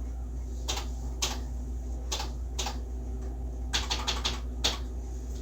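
Electronic typewriter striking characters: four separate strikes, then a quick run of about six near four seconds in and one more after it, over a steady low hum.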